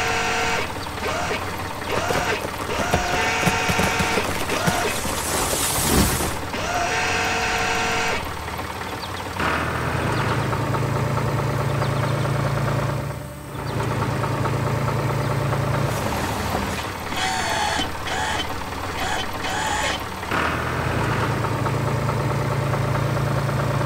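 Cartoon sound effects of a tractor with a backhoe arm: the engine running with a steady low drone in long stretches, broken by repeated short whining mechanical effects, and a loud hiss about six seconds in.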